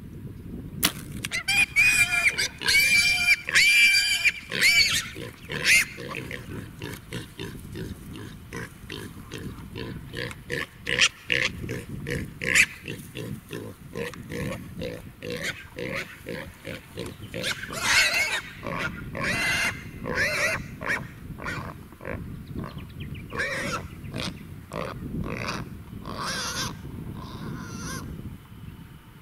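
Feral pigs squealing and grunting: loud high-pitched squeals in the first few seconds, then a run of quick grunts, with more squeals around the middle and near the end.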